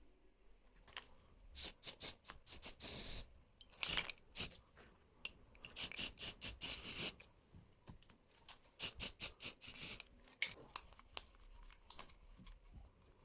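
Hands-on work noise: clusters of quick clicks and short scraping strokes, coming in four bunches with quieter gaps between.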